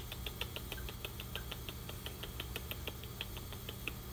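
Cotton Patch gosling peeping: a rapid, steady series of short high squeaks, about six a second, that stops near the end.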